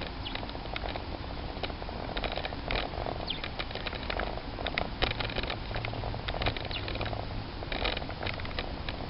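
Bicycle coasting down a tarmac road without pedalling: tyre and road noise with wind rumble on the microphone, the freewheel hub ticking, and irregular rattles and clicks from the bike jolting over bumps.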